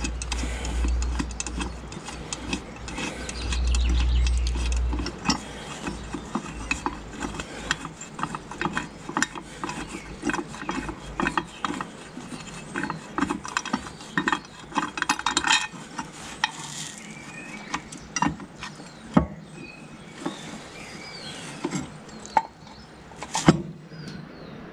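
Hand tools and steel brake parts clicking and clinking as a bolt is worked on a tractor's brake linkage, in irregular small ticks with a low rumble during the first five seconds. Two sharper metallic knocks come near the end.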